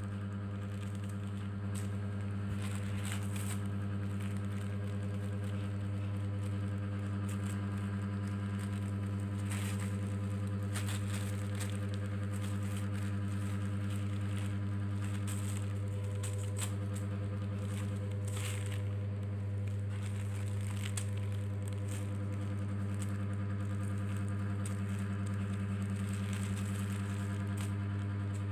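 A steady low hum with a stack of overtones, and over it scattered crinkles of a plastic sheet as a kitten rolls and paws about on it.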